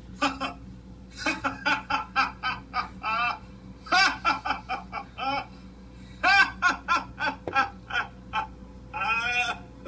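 A voice laughing in several runs of quick, choppy 'ha-ha' bursts over a steady low hum.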